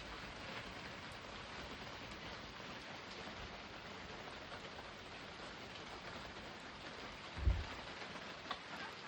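A steady hiss of background noise, with one dull low thump about seven and a half seconds in and a faint click a second later.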